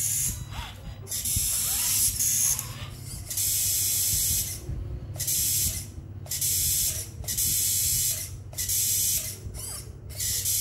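Steering servo of a Traction Hobby Cragsman F150 RC crawler giving a harsh, hissy buzz in repeated bursts of about a second each as the steering is worked, over a steady low hum. The sound is loud and strange and comes when the wheels are steered left, which the owner takes for a fault in the servo.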